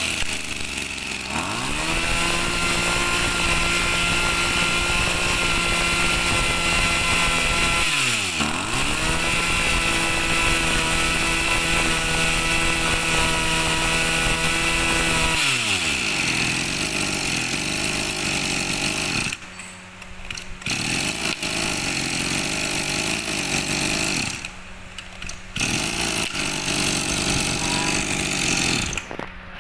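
Tanaka TBC-227 brush cutter's 23 cc two-stroke engine revving up and running at high revs, the revs dropping and climbing back once about 8 seconds in. After about 16 seconds it falls to a lower, rougher run with two brief dips near 20 and 25 seconds.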